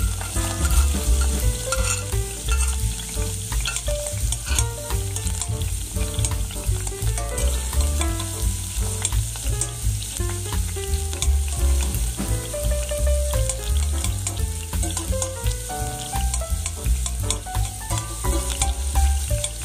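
Ginger, garlic and onion sizzling and crackling as they sauté in hot oil in a stainless steel pot, stirred with a metal ladle.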